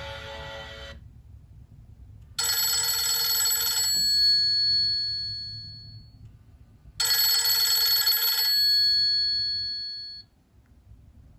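A Nokia C7-00 ringtone imitating an old telephone bell. It rings twice, about four and a half seconds apart. Each ring is a second and a half of rapid bell ringing, then a high tone that fades out. The end of a previous musical ringtone stops about a second in.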